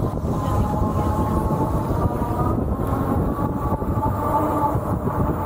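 Ariel Rider Kepler V2 e-bike motor whining steadily under power at cruising speed, its thin whine rising slightly in pitch a couple of times. A dense low rumble of wind on the microphone runs underneath.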